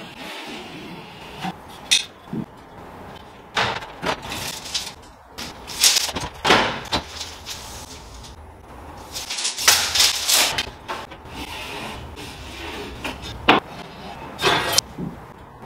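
Irregular scraping, rustling and a few sharp knocks from hand work against a plasterboard ceiling: an aluminium strip being handled and fitted, and a tape measure in use. The loudest scrapes come in the middle and near the end.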